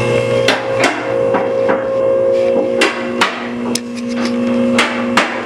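Hammer blows on metal: about seven hard, unevenly spaced strikes, as when knocking loose suspension parts while pulling a car's struts.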